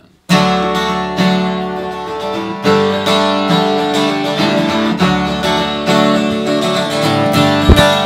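Acoustic guitar strumming chords in a folk tune, starting abruptly just after the beginning, each chord left to ring before the next strum. A low thump near the end.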